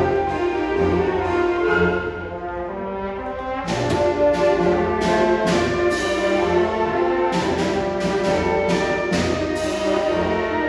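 School concert band playing a tango: sustained brass and woodwind chords over regular percussion strikes. It drops to a softer passage about two seconds in, then the full band comes back in louder.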